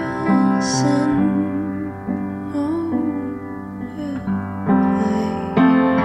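Background music with long held notes and a wavering melody line.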